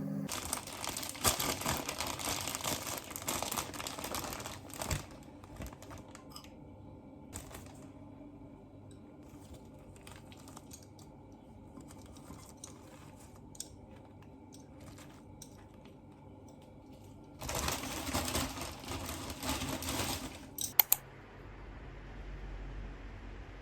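Typing on a computer keyboard in two quick bursts with scattered faint taps in between. Two sharp clicks come near the end, followed by a low hum.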